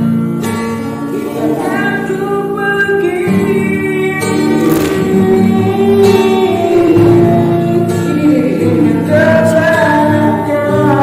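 Acoustic guitar played with a voice singing a slow melody over it.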